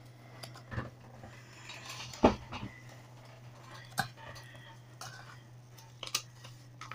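About five faint clicks and knocks scattered over a few seconds, the clearest a little after two seconds in, as draw lots are rummaged and handled for the next pick. A steady low hum runs underneath.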